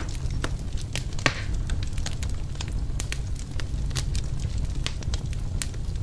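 Wood fire crackling in a fireplace: irregular sharp pops and snaps over a steady low rumble, with one louder pop about a second in.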